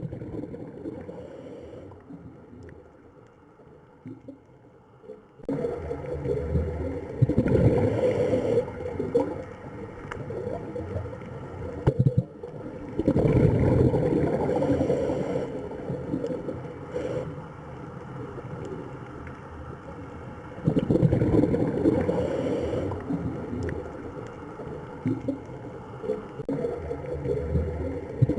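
Rushing, gurgling water with no clear pitch, quieter for the first few seconds, then swelling and easing off in repeated surges.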